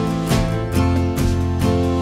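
Background music: a strummed guitar with a steady rhythm of about two strums a second.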